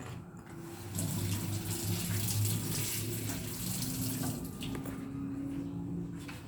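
Water running steadily for about three and a half seconds, starting about a second in and fading out, with a low hum beneath it.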